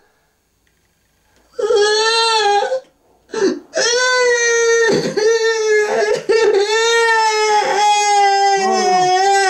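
A loud, wailing cry at a steady pitch. After a short silence it comes as a call of about a second and a brief second call, then from about four seconds in as a long, nearly unbroken wail.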